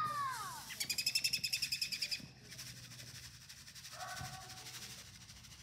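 Wild birds singing: a short slurred whistle that rises and falls, then a loud, rapid, high trill of evenly repeated notes lasting just over a second, and a short flat note near the end.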